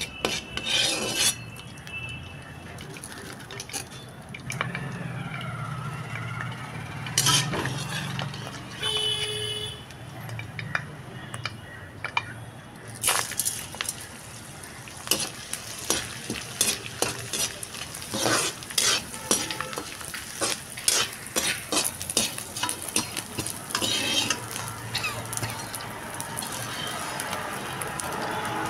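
Ghee sizzling in a steel kadhai while a metal spoon stirs and scrapes the pan as dry fruits and fox nuts (makhana) are roasted. The spoon's clicks and scrapes come thick and fast in the second half.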